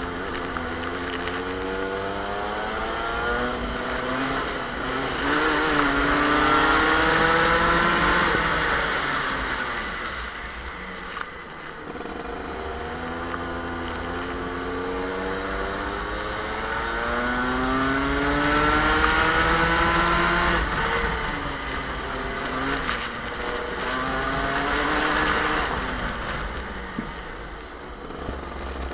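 Two-stroke Rotax kart engine heard onboard, its note climbing for several seconds as the kart accelerates, then dropping when the throttle is lifted for a corner, three times over.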